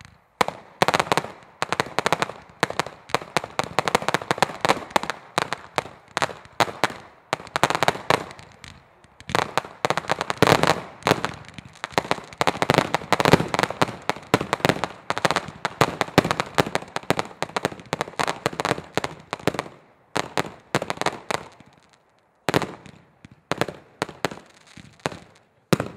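Fireworks barrage: a dense, rapid run of launches and small aerial bursts, many shots a second. It stops briefly about four seconds before the end, then starts again.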